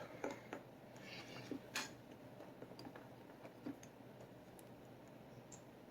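A few faint, scattered clicks and taps of a plastic action figure being handled, in a quiet small room.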